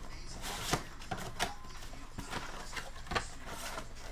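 Cardboard trading-card hobby box being opened by hand: its flaps are pulled apart and the box is handled, with rustling and a few short knocks and clicks.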